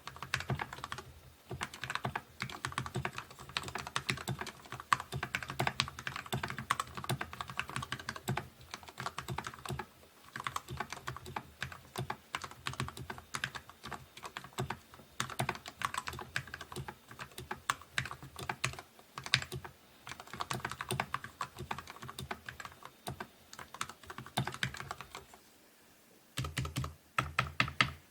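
Typing test on a Skyloong GK61 custom mechanical keyboard fitted with Gateron Yellow linear switches: a fast, irregular run of key presses, with a short pause near the end.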